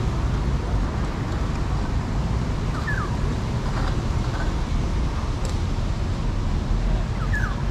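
Steady rumble of road traffic, with two short high chirps about three seconds in and near the end.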